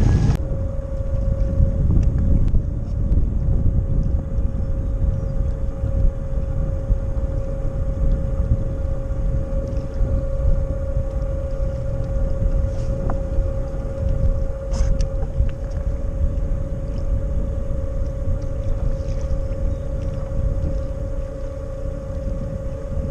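Torqeedo electric kayak motor running with a steady whine that starts just after the beginning, with wind buffeting the microphone throughout.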